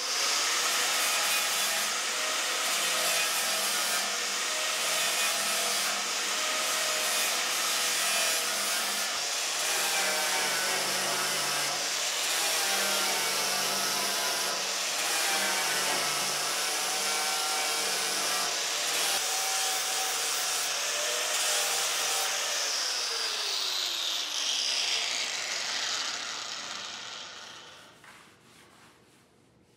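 Angle grinder grinding the steel of the Jeep's body-tub wheel well: a steady grinding hiss with a motor whine that wavers as it is pressed into the metal. About three-quarters of the way in the grinder is released and winds down, its whine falling in pitch.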